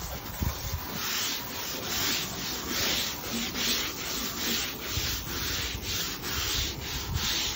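Scrub brush scrubbing wet Dekorator Voyage composite decking in steady back-and-forth strokes, about two to three a second.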